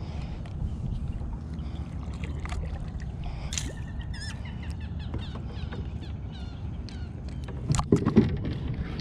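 Hooked largemouth bass splashing at the surface beside a kayak as it is reeled in, over a steady low rumble with scattered small clicks. About eight seconds in comes the loudest part, a burst of splashes and knocks as the fish is swung out of the water.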